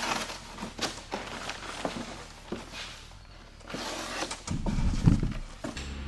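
Scattered knocks and clicks, then a heavier low thud about five seconds in.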